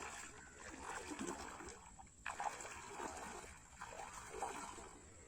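Faint water splashing and trickling, uneven and without a steady rhythm.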